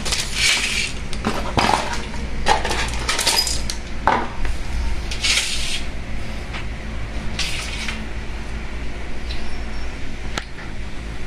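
Scattered light metallic clinks and short scrapes of an aluminum sliding-door track and its roller and stopper fittings being handled and fitted.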